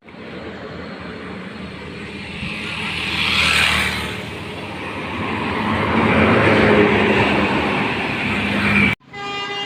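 Road traffic: a large vehicle's engine and tyres going past, swelling about three to four seconds in and again a few seconds later. Near the end, after a cut, a bus's multi-tone telolet horn starts playing its run of notes.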